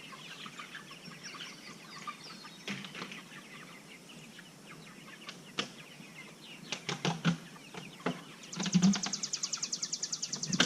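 Chickens clucking and young meat-bird chicks peeping, with a few sharp knocks. Near the end a fast, even, high trill starts up.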